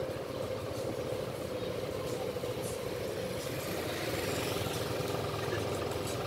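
Steady street traffic noise: motor vehicle engines running, with no single event standing out.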